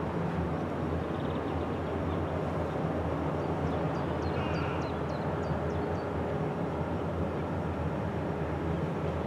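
Steady low rumble of a large container ship's engines passing on the river, with a few faint high chirps near the middle.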